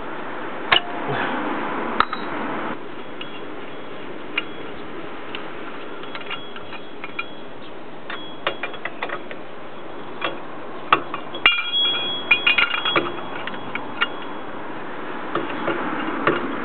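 Metal hand tools and steel parts clicking and knocking during ball joint work on a Dana 30 front axle, in scattered sharp strokes. A quick run of clicks with a brief metallic ring comes about two-thirds of the way through.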